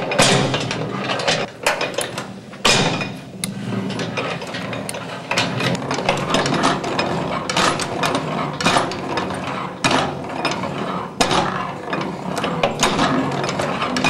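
Antique hand-powered washing machine worked back and forth by its wooden lever. Its cast-iron gearing and flywheel clatter in a rapid run of clicks and clanks, with a heavier knock now and then.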